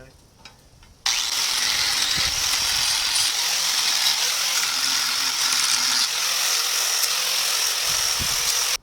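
Flux-core wire-feed welder laying a bead: a steady crackling sizzle that starts abruptly about a second in and cuts off sharply just before the end, with no spin-up or spin-down.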